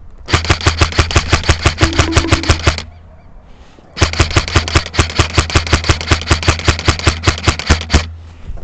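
Airsoft gun firing on full auto in two long bursts of rapid, evenly spaced shots: the first about two and a half seconds long, the second, after a pause of about a second, about four seconds long.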